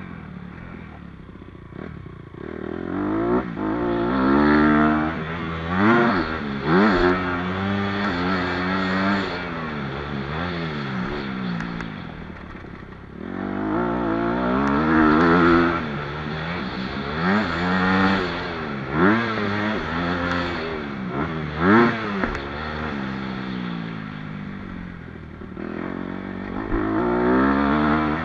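Motocross bike engine heard from the bike itself, revving up through the gears and dropping back again and again as the rider accelerates and slows. It eases off briefly near the start, about halfway through, and again near the end.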